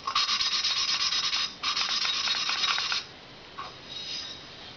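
Valve lapping in a Harley-Davidson Evo Sportster cylinder head: the valve, coated in metal-cutting compound, is spun back and forth against its seat with a hand lapping stick, making a gritty metallic rasping. Two strokes with a brief break between them, stopping about three seconds in, followed by a few faint taps.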